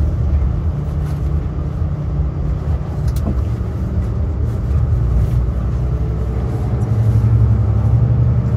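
Bus engine and road noise heard from inside the passenger cabin: a steady low rumble, with the engine note rising and getting louder about seven seconds in.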